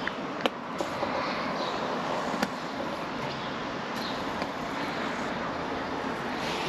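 Steady outdoor background rumble, with a few light, sharp clicks, the clearest about half a second in and near two and a half seconds in.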